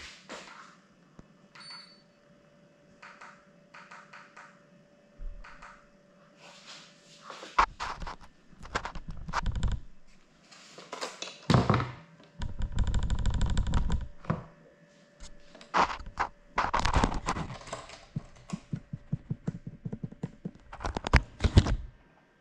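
Irregular knocks, thuds and clicks in a small room, bunched into clusters, with a fast rattle lasting about a second and a half midway.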